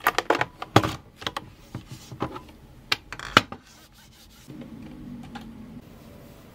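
Sharp clicks and knocks as a power cord and a small appliance are handled, the loudest a little under a second in and about three and a half seconds in. From about four and a half seconds, a cloth rubs across a countertop in a steady wipe.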